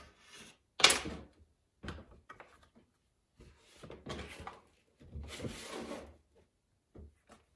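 Tools and clay handled on a worktable while a clay slab is cut to size: a sharp knock about a second in, then several scraping and sliding sounds and a couple of light taps near the end.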